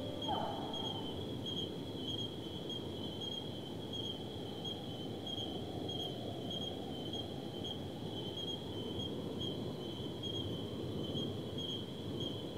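Forest ambience: a steady high insect trill that pulses about twice a second, over a low even rumble of background noise. The last note of the music fades out in the first second.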